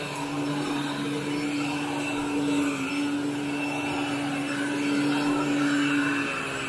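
Upright vacuum cleaner running steadily on carpet: a constant motor tone with a rushing of air over it as the powered head is pushed along.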